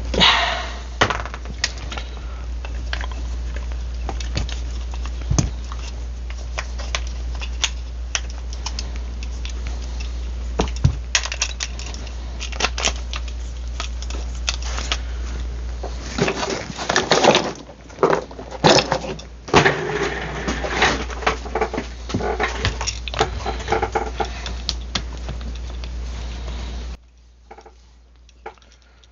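Irregular clicks, taps and clinks of small metal parts and tools being handled, over a steady low hum. The knocking grows busier and louder in the second half, and the hum cuts off near the end.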